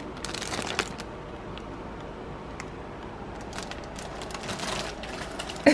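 Thin plastic bag crinkling as a bagged snack is handled, in two short bouts: one just after the start and one around four seconds in.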